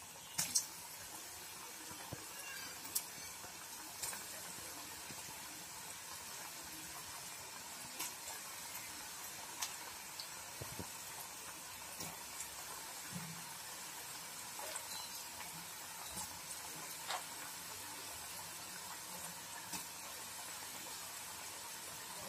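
Vegetable pakoda batter deep-frying in hot oil in a kadai as pieces are dropped in one by one: a steady sizzle with scattered sharp crackles.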